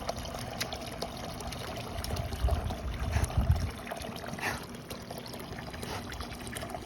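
Water trickling, with a low rumble for about a second midway.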